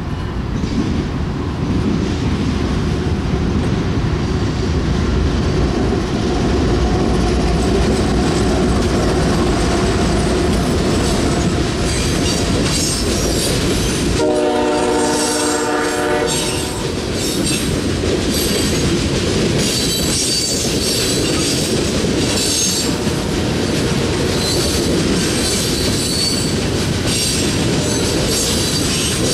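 Freight cars and coal cars rolling past on the rails: a steady heavy rumble with wheel clatter, and high-pitched wheel flange squeal from about the middle on. About fourteen seconds in, a train horn sounds for about two and a half seconds.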